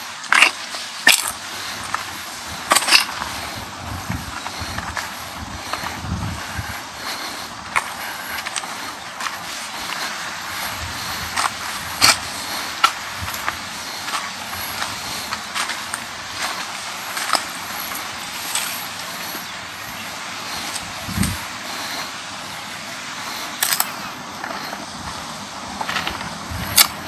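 Seaside ambience: a steady wash of waves and wind, with scattered sharp clicks at irregular intervals.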